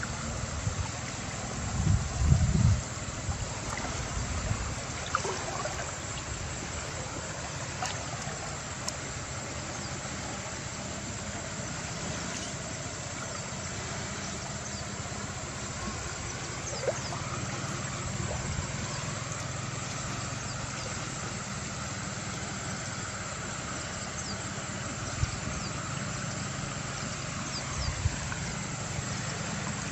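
A steady low motor hum under an even hiss of river water, with a few gusts of wind buffeting the microphone in the first seconds.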